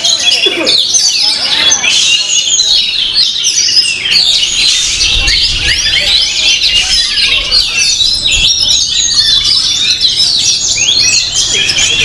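Oriental magpie-robins (kacer) singing: a dense, unbroken chorus of rapid, overlapping chirps, whistles and trills from many caged birds at once.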